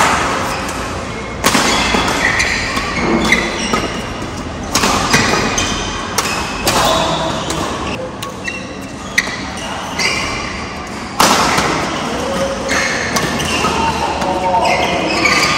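Badminton rally: sharp racket strikes on the shuttlecock every second or two, with short squeaks of court shoes on the floor between the hits, echoing in a large hall.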